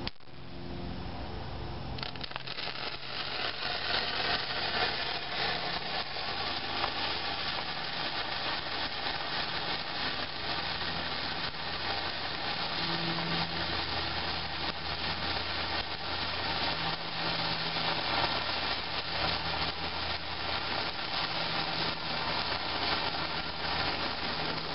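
Homemade potassium nitrate, magnesium and charcoal sparkler burning: a steady hissing crackle that builds up about two seconds in once it catches, then keeps on evenly as it burns down.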